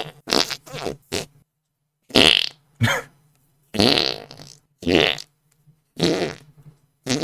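A run of about eight short armpit fart noises, made by pumping a hand cupped against the armpit, each a brief wavering sputter, coming roughly every half second to second.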